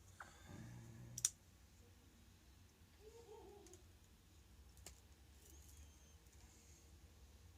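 Quiet work sounds: a few sharp clicks and taps of plastic pry tools against a tablet's glass and frame while the screen adhesive is being cut, the loudest click about a second in.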